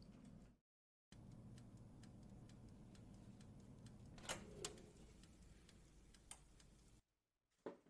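Near silence with a faint, even ticking, about three light ticks a second, and a few sharper clicks a little past the middle.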